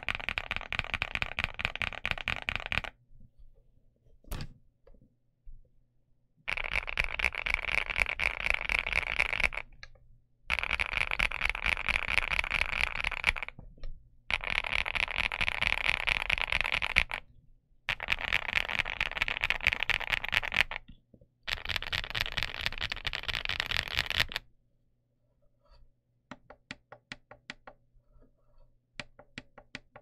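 Fast typing on a stock Infiverse Infi75 mechanical keyboard with Qing Ji Designer linear switches and PBT keycaps: dense runs of key clacks lasting about three seconds each, with short pauses between them. The last few seconds hold only a few scattered, quieter keystrokes.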